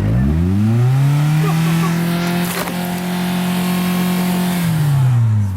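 A 4x4's engine revving up, held at high revs for about three seconds, then dropping back near the end, with a sharp click about halfway through.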